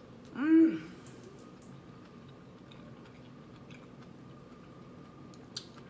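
A woman hums a short closed-mouth "mmm" through a mouthful of food about half a second in, rising then falling in pitch. After it come faint chewing sounds and small mouth clicks.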